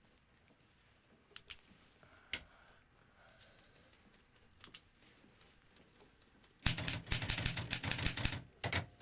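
Manual typewriter. A few faint, scattered clicks, then about seven seconds in a fast run of keystrokes lasting nearly two seconds, followed by a couple of single strikes.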